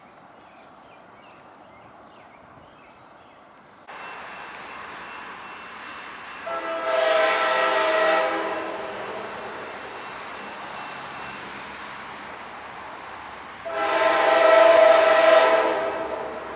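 Locomotive air horn blowing two long blasts, the second about six seconds after the first, sounded for a grade crossing.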